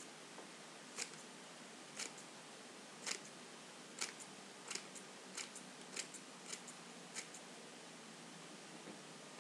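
Scissors snipping through red paper: sharp snips about once a second at first, then quicker paired snips, which stop a couple of seconds before the end.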